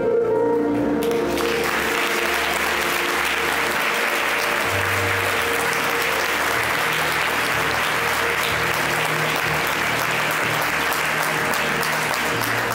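Audience applauding, breaking out about a second in and keeping on steadily, over music that goes on underneath.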